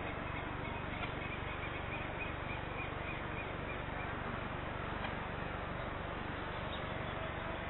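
Steady airport background noise, a low rumble with an even hiss over it. A quick series of high chirps, about four a second, runs for the first few seconds.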